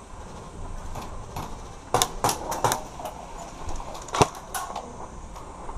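Airsoft gunfire: a string of sharp single cracks, a quick cluster about two seconds in and two more a little after four seconds, the first of these the loudest.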